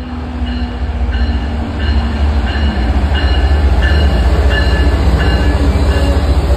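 MBTA commuter rail diesel locomotive drawing in alongside the platform, its engine rumbling and growing louder. Over the rumble a bell-like tone rings about three times every two seconds, typical of a locomotive bell sounding as the train enters a station.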